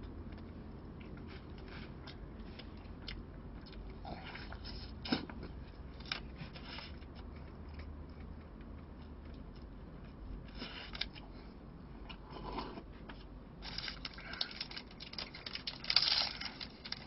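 Quiet eating sounds: chewing, and a plastic spoon clicking and scraping in a plastic takeout lunchbox in scattered short bursts, busiest near the end. A low steady hum runs underneath.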